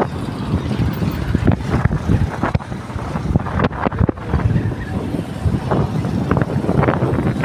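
Wind buffeting the microphone: a steady low rumble broken by irregular crackling gusts.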